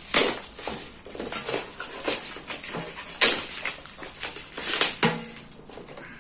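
Packaging handled by hand: irregular rustling with several sharper crackles, the loudest about three seconds in.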